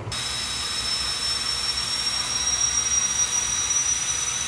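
Compressed-air tool running: a steady hiss with a high whine that creeps slightly upward in pitch, starting suddenly.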